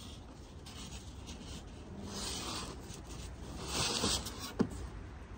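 Plant plug trays and their shipping packaging being handled: two rubbing, scraping swishes about two and four seconds in, and a sharp click shortly after the second.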